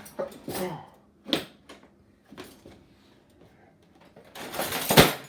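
Kitchen handling noises: a few faint knocks, then near the end a scrape of about a second that ends in a sharp knock, the loudest sound.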